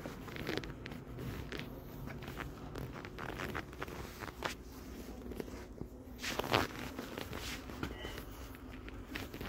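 Footsteps on a hard floor with rustling handling noise, irregular light clicks and scuffs, and one louder rustle about two-thirds of the way in. A faint short high beep sounds near the end.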